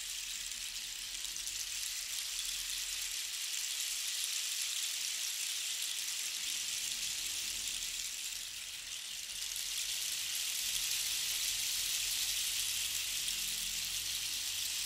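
Long cactus rain stick held on end after being turned over, its filling trickling down inside in a steady, rain-like hiss. The hiss grows a little louder about two-thirds of the way through.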